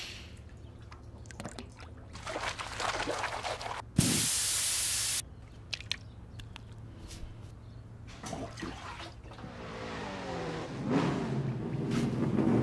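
Soft clicks and rustles of small objects being handled, with a loud hiss about four seconds in that lasts a little over a second and stops abruptly, then a rising sound building toward the end.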